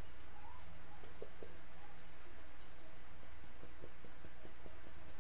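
Irregular soft taps and clicks of a paintbrush dabbing acrylic paint onto a stretched canvas, stippling in grass, over a steady low hum.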